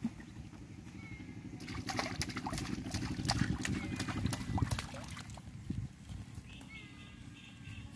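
Hooked fish thrashing and splashing at the surface of a weedy pond, a quick run of splashes from about two to five seconds in, over a steady low rumble.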